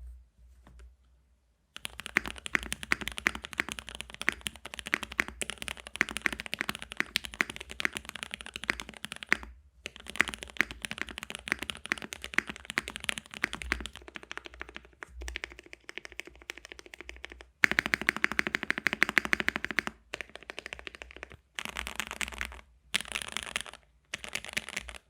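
Typing on a mechanical keyboard with lubed Gateron Yellow linear switches, in an O-ring-mounted aluminium KBDFans Tofu65 case with added foam, fitted with Olivia clone keycaps. Fast, continuous keystrokes start about two seconds in, with a few brief pauses.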